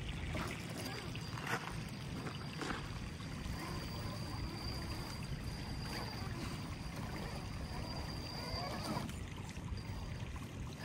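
A small brushless-converted RC rock crawler driving over rocks and gravel: a steady high electric whine that drops out briefly about nine seconds in, with a couple of faint knocks, over a noisy outdoor hiss.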